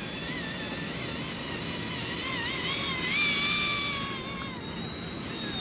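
Small electric RC helicopter motor and rotor whine, its pitch wavering with throttle and rising to its loudest about three seconds in before settling lower. Wind on the microphone adds a low rumble.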